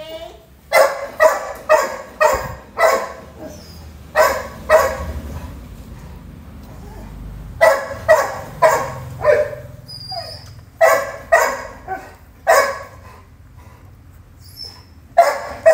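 A dog barking repeatedly, in runs of two to five sharp barks with pauses of a second or two between them.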